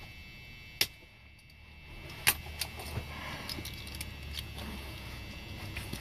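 Hand cutters scoring a small brass lock-cylinder part: two sharp metallic clicks about a second and a half apart, then lighter clicking and rattling of small metal parts in the hands. A low hum comes in about two seconds in.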